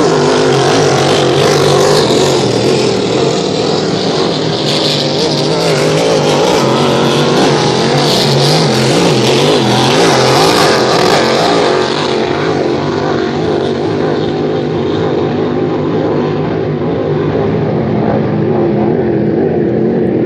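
Several Grand Prix hydroplanes racing at full throttle, engines running loud with a wavering pitch. The sound grows duller and a little fainter in the second half as the boats pull away.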